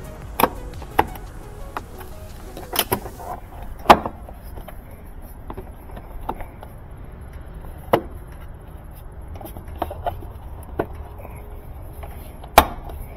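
Sharp plastic clicks and knocks, about seven of them spread out, the loudest about four seconds in, as the bleach dispenser cup of a Kenmore Elite Oasis washer is handled and fitted back into the washer top.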